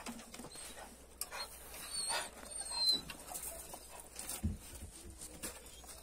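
Kangal dogs stirring at their kennels: scattered faint clicks and knocks, a few short high-pitched chirps about two to three seconds in, and a dull thump about four and a half seconds in.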